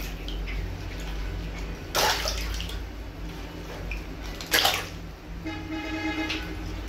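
Water balloons bursting in a basin, two sharp pops about two and a half seconds apart, each followed by a short splash of released water. A brief steady-pitched tone sounds near the end over a low background hum.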